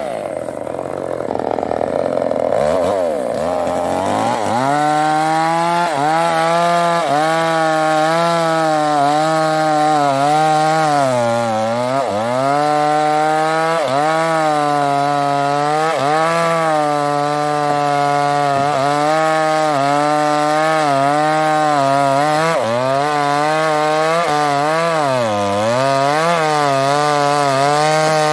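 New West 628 two-stroke chainsaw with a 26-inch bar revving up about four seconds in, then running flat out through wood. Its pitch sags briefly again and again as the chain loads up in the cut.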